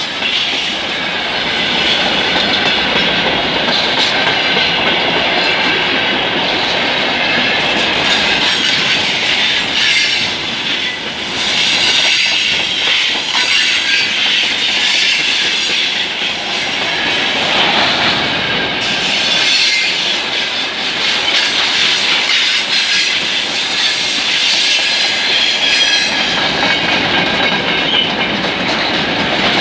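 Freight wagons rolling past at close range: a steady, loud noise of steel wheels running on the rails, with a thin high squeal from the wheels mixed in.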